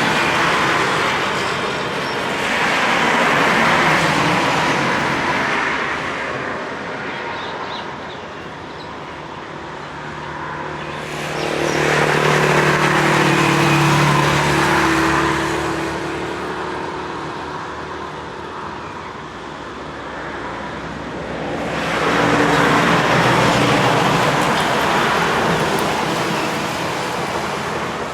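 Cars and trucks passing by on a road one after another, each swelling and fading away, over a steady traffic hum. The pass about halfway through carries a low engine drone.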